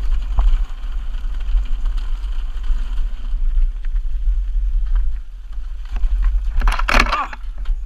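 Wind rumbling on a GoPro's microphone as the Intense Tracer mountain bike rolls fast down a rocky dirt trail, tyres running over loose stones. There is a short loud burst near the end.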